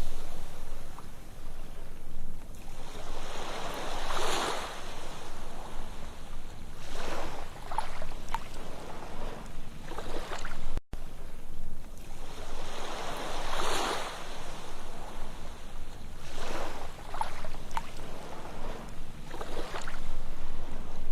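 Ocean surf washing onto a sandy beach, each wave swelling in and hissing out every three seconds or so. There is a split-second dropout in the sound about halfway through.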